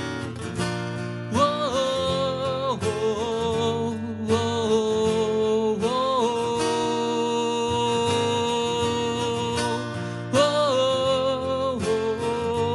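Acoustic guitar strummed live, with a man singing into a microphone from about a second and a half in, holding long notes with vibrato.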